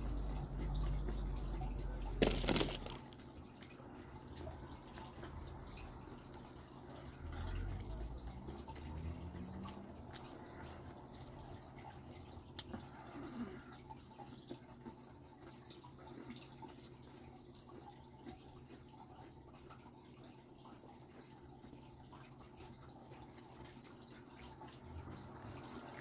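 Faint wet chewing and mouth sounds of a man eating a white-fudge-covered Oreo cookie, with one sharp knock about two seconds in.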